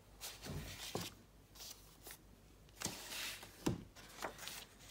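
Paper being handled: soft rustles of vintage book pages, with a few light taps.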